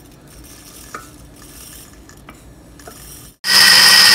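A few faint clicks and knocks of a glass blender jar being handled, then, near the end, an electric mixer grinder starts abruptly and runs loud and steady with a high whine, grinding dry-roasted split moong dal into a coarse powder.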